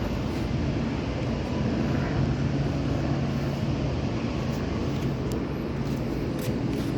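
A low, steady engine drone with a humming tone, swelling a little in the middle and easing toward the end.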